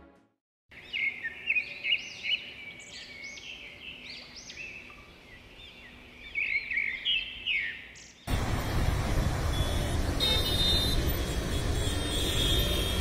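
Gulls calling, many short arching cries overlapping, for about seven seconds. Then, abruptly, the louder steady noise of busy city street traffic, with horns sounding near the end.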